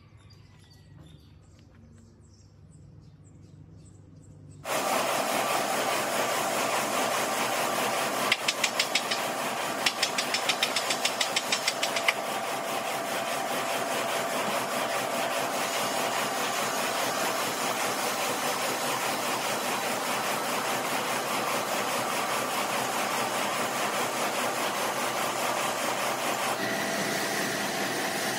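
Heavy machinery running steadily, setting in abruptly about five seconds in after a quiet start, with a quick run of ticks partway through.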